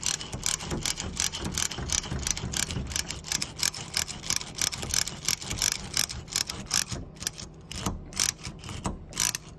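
Spiral ratchet screwdriver being pumped by hand, its spinning shaft and ratchet clicking rapidly as it turns a screw, with a few short breaks between strokes near the end.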